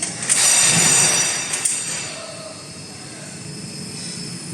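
Automatic wire mesh welding machine running, with a loud burst of high-pitched metallic screeching and a couple of sharp clicks in the first two seconds, then quieter steady machine noise.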